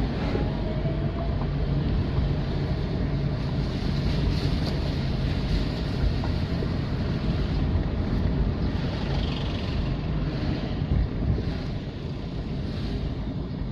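Steady noise of vehicle engines running in floodwater, mixed with the rush of water and wind buffeting the microphone, with a low engine hum near the start.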